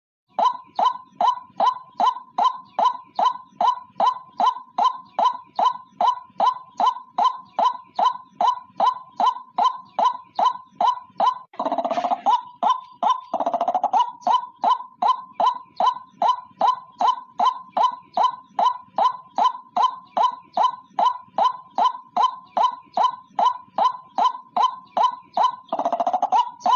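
White-breasted waterhen (ruak-ruak) calling a fast, even series of short notes, about two and a half a second. Longer, harsher calls break in about twelve seconds in and again near the end.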